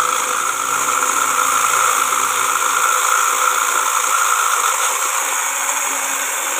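SilverCrest 3000 W hand blender motor running steadily with its whisk attachment, beating raw eggs in a plastic beaker: a loud, even whine.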